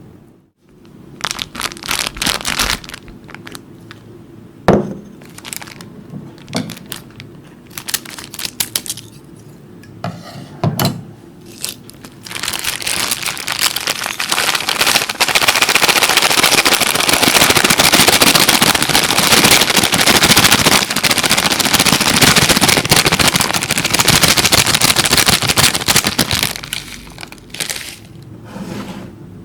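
Sharp crackles and clicks of materials being handled, scattered at first, then a dense run of continuous crackling lasting about fifteen seconds before it thins out near the end.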